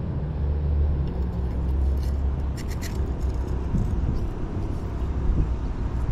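Steady low rumble of road traffic, with a few light clicks about two and a half seconds in.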